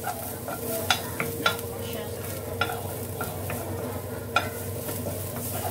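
Minced garlic sizzling in a little oil in a nonstick wok while a wooden spatula stirs it, with several sharp knocks of the spatula against the pan. The garlic is frying toward golden brown.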